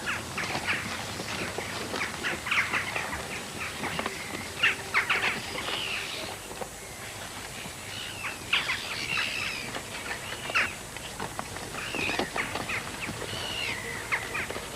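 Birds chirping and calling, many short overlapping high notes coming in irregular clusters.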